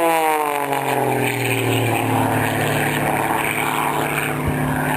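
Propeller engine of an aerobatic airplane, its pitch dropping steeply over the first two seconds and then settling into a steady drone.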